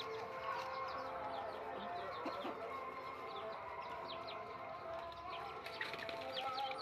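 Chickens clucking in a yard, with many short, high chirps falling in pitch throughout.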